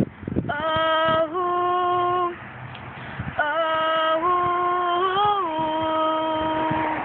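A girl singing long held notes on her own, with no accompaniment and no words: one note from about half a second in, then after a short break another long note that bends briefly about five seconds in.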